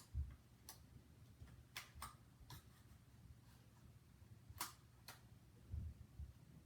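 Faint, scattered sharp clicks, about seven of them, with a few dull low bumps, from the tablet tripod's holder being pushed and worked to snap into its mount.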